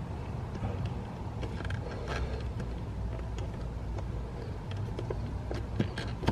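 Small plastic clicks and rattles of an electrical connector being worked loose by hand under a car's dashboard, sharper near the end, over a steady low rumble.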